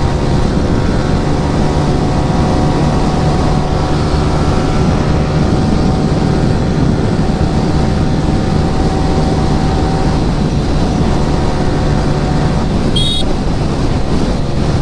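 Yamaha R15 V3's single-cylinder engine breathing through an Akrapovic R9 exhaust, running at a steady pitch while cruising, under heavy wind noise on the microphone. A brief high beep sounds near the end.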